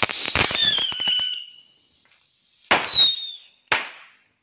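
Small firecrackers going off together: a rapid run of crackling pops with a whistle falling in pitch over the first second and a half. After a brief lull comes another burst with a shorter falling whistle, and a last sharp bang near the end.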